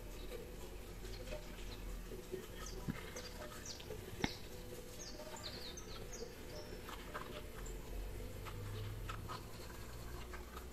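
Quiet room tone: faint rustling and light ticks of a metal crochet hook working cotton thread, with one sharper click about four seconds in, over a low steady hum. A few faint, short, high chirps come about halfway through.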